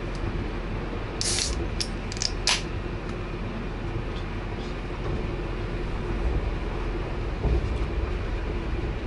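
Passenger train running: a steady low rumble of wheels on rails, with a few short hissing bursts a little over a second in.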